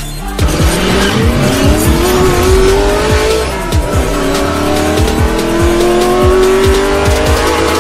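Electronic intro music with a steady beat, overlaid with a race-car engine sound effect whose note rises, dips about four seconds in, then climbs again; it all cuts off suddenly.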